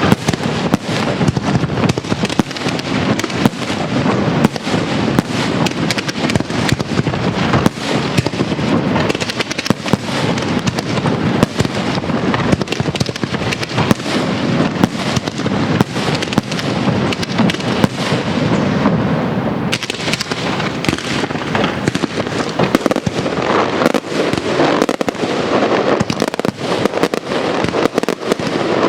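Castillo aerial fireworks display going off in a dense, unbroken barrage: many overlapping shell bursts, bangs and crackles with hardly a gap between them.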